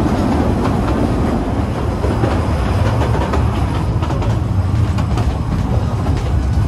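Kurobe Gorge Railway narrow-gauge trolley train running, heard from an open passenger car: a steady rumble of wheels on the rails with faint clicking from the track.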